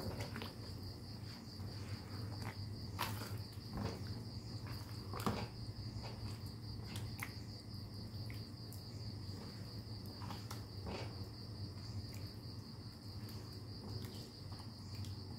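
A white spatula stirring thick curry in a non-stick wok, with scattered short knocks and scrapes against the pan. Under it runs a continuous high, finely pulsing trill and a low steady hum.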